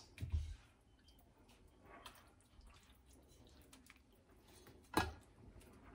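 Spoonfuls of wet minced-meat filling dropped onto a tortilla, with soft plops and small scraping sounds, a low thud just after the start, and one sharp knock about five seconds in.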